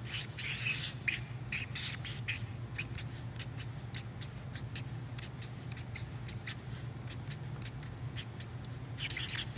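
Felt-tip marker drawing on flip-chart paper: quick, scratchy strokes, bunched in the first few seconds and again near the end, over a low steady hum.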